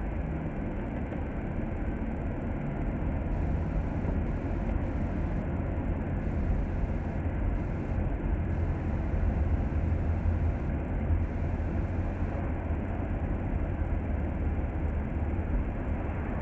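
Steady engine and road rumble heard inside the upper deck of a moving double-decker bus, swelling a little about halfway through.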